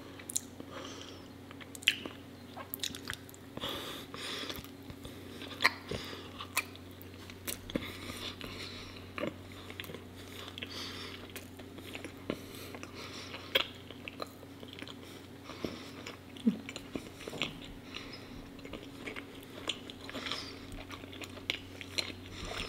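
Close-miked mouth sounds of a person chewing bread topped with raw honeycomb: sticky smacks and sharp clicks, irregular throughout.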